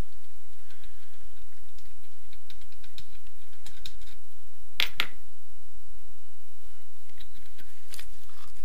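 Light metallic clicks and taps as loosened bolts are unscrewed by hand and handled on a Honda VFR800 engine's crankcase, with a sharper clink about five seconds in, over a steady low hum.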